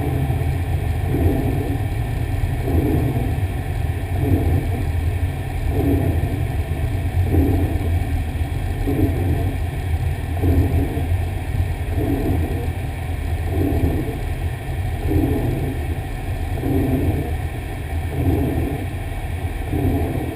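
A fire engine driving, its engine and road noise a steady low rumble heard from inside the cab, with a soft regular pulse about every second and a half.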